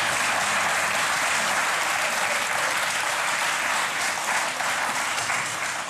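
Studio audience applauding, steady and dense, thinning out near the end.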